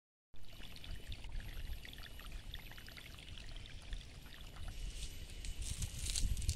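A small, shallow stream of water trickling and babbling over a muddy bed, with many small splashes, and a louder hiss coming in near the end.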